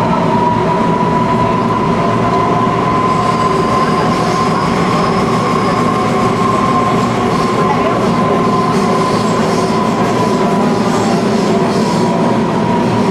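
Naples Metro Line 1 train running at speed, heard from inside the carriage: a steady rumble of wheels on rail with a whine that rises slightly and then eases back. Faint high-pitched wheel squeal comes in after the first few seconds.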